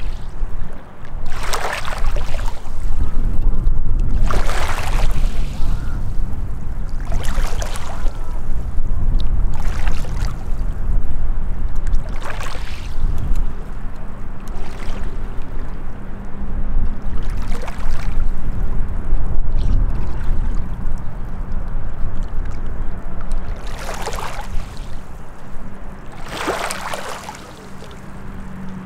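Small lake waves lapping and washing onto a rocky, sandy shore in swells every two to three seconds, over a steady low rumble. A faint steady hum joins about halfway through.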